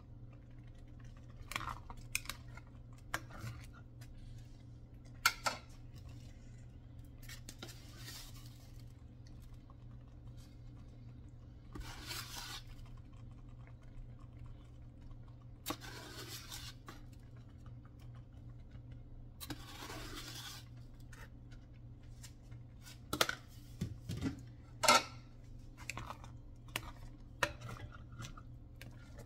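A plastic rice paddle scoops chocolate drink powder from a plastic canister and stirs it in a glass pot. There are irregular sharp taps and clicks and several brief scraping, rustling strokes, with a cluster of louder taps near the end, over a steady low hum.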